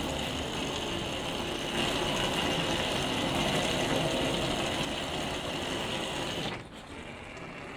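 Simulated heavy rain drumming on a bare polycarbonate roof panel: a dense, steady, high-frequency drumming. Near the end it drops suddenly to a quieter, duller sound.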